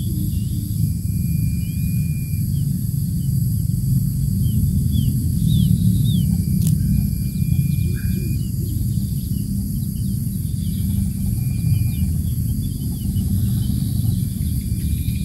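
A steady low rumble with faint, short, high chirps scattered through it and a few thin whistles about a second long each, twice near the middle.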